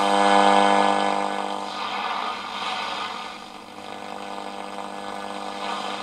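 AM reception through a Columbus model 26P valve radio's loudspeaker: a steady droning tone with overtones over a hiss of static. It is loudest in the first second and a half and then fades.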